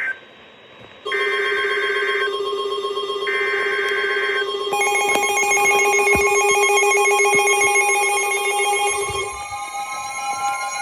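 Emergency Alert System signals from NOAA Weather Radio: three short bursts of warbling SAME data tones, each about a second long, with steady alert tones, including one near 1 kHz, starting about a second in and overlapping under and after them. This marks the start of a severe thunderstorm warning. Near the end one tone begins to rise in pitch.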